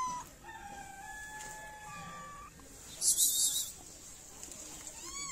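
A stray cat meows at the start and again near the end, each meow rising and then falling in pitch. Between them comes a long, held animal call that steps up in pitch before it stops, and a short, loud hissing noise about three seconds in.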